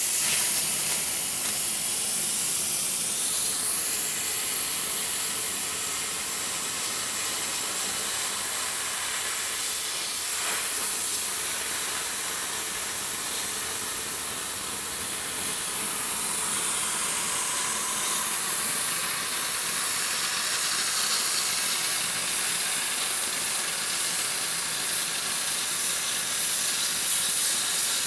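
Oxy-fuel cutting torch on a Victor pattern-tracing machine cutting through 5/8-inch steel plate: a steady hiss of the cutting-oxygen jet blowing molten metal out through the kerf.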